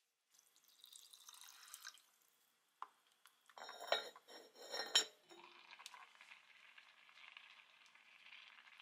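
Cast-iron pot lid handled by its metal knob, giving a few sharp metallic clanks with a short ring about four and five seconds in. After that comes a steady soft bubbling hiss of rice boiling in the pot.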